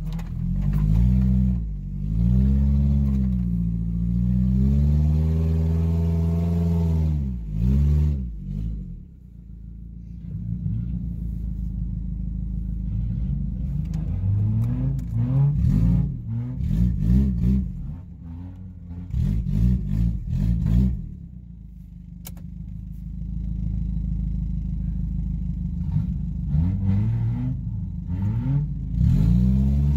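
Suzuki Sidekick's four-cylinder engine revving up and down again and again under off-road driving. It eases off about nine seconds in and again for a few seconds past the twenty-second mark, then picks up once more.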